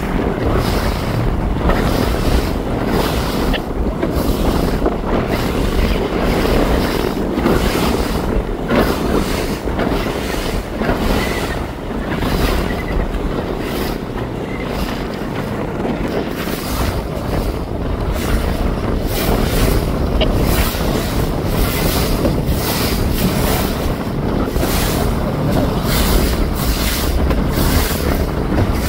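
Wind buffeting the microphone and water rushing and splashing along a sailing boat's hull as it sails upwind through waves: a loud, steady rush with rapid flutter.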